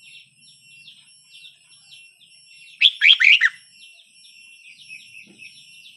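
Red-whiskered bulbul singing one short, loud phrase of rapid whistled notes about three seconds in, over a constant faint high twittering.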